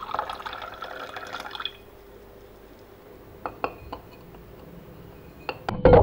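Tea poured in a thin stream into a cut-glass tumbler, splashing for a little under two seconds before it stops. A few light glass clinks follow, then near the end a loud splash as something is dropped into the full glass.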